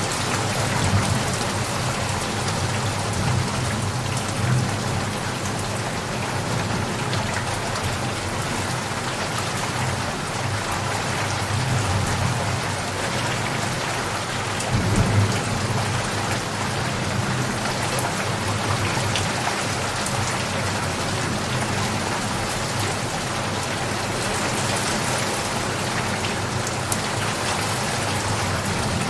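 Steady, dense rain falling on surfaces, with a low rumble of distant thunder underneath that swells briefly about halfway through.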